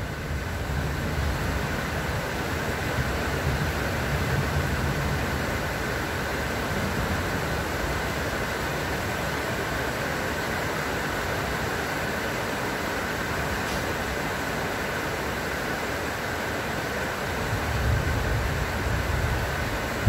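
Steady rain falling on trees and garden foliage, with low rumbling swells rising and fading, loudest near the start and again near the end.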